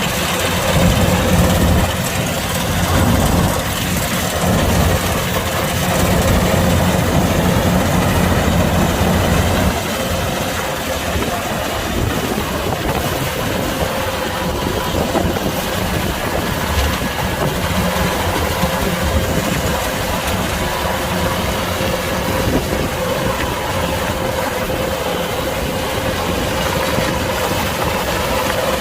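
Kubota DC-105X combine harvester running steadily, a continuous machine drone with a low hum and a steady higher tone. The low hum is stronger for roughly the first ten seconds.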